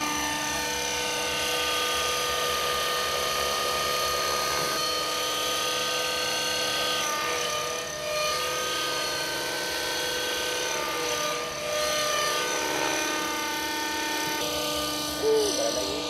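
Nitro-engined RC model helicopter flying, its engine and rotors giving a steady high whine that steps up and down in pitch as the throttle changes. A voice breaks in briefly and loudly near the end.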